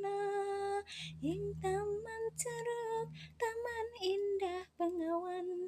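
A female voice singing a slow Javanese song in long held notes, phrase after phrase, with short breaths between.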